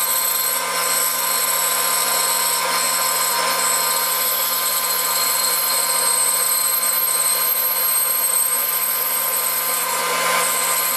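Bandsaw running steadily while cutting the angled scarf-joint line through a wooden guitar neck blank: an even motor hum under a constant high hiss from the blade.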